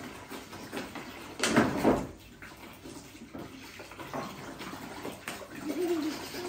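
Water pouring and splashing into a tub, with a louder splash about a second and a half in and a few light knocks later.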